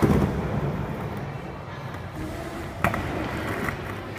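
Skateboard wheels rolling on a smooth concrete floor, a low rumble that is strongest at the start and slowly fades, with one sharp clack about three seconds in.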